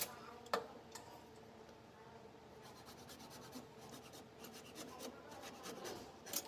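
Faint scratching and rubbing with scattered light clicks, and a sharper tap about half a second in.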